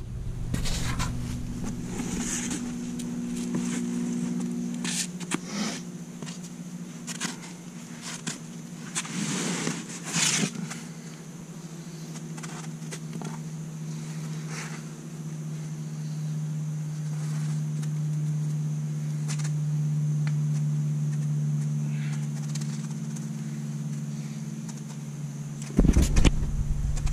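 A steady low hum, its pitch shifting about ten seconds in, with scattered scrapes and taps of a climber's hands and shoes on the rock of a boulder.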